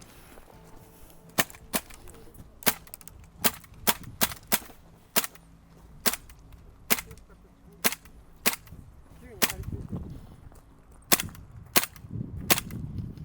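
Airsoft gun firing about fifteen single shots. The sharp cracks come at an uneven pace, roughly one every half-second to second, with a short gap about two-thirds of the way through.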